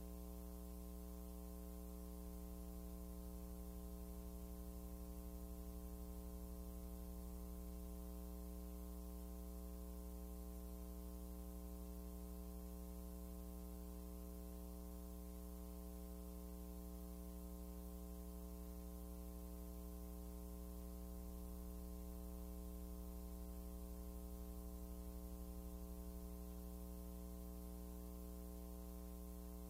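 Steady electrical mains hum, a low buzz with a ladder of overtones that never changes, on an otherwise empty soundtrack.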